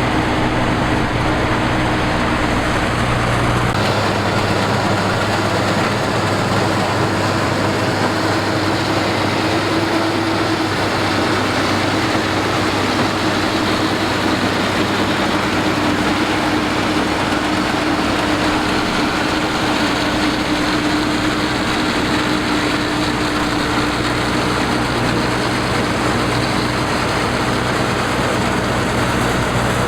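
Combine harvester's engine and machinery running steadily under load, a continuous mechanical drone with a deep rumble that drops away about four seconds in.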